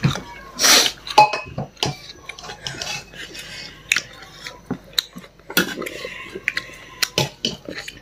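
Close-up eating sounds: utensils clicking and clinking against a plate or bowl, with chewing in between.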